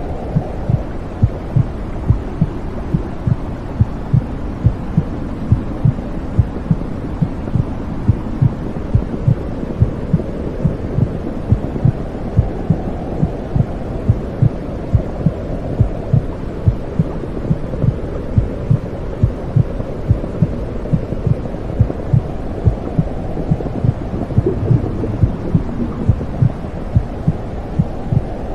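Womb sound: a steady heartbeat, a little more than one beat a second, over a continuous low whooshing rumble.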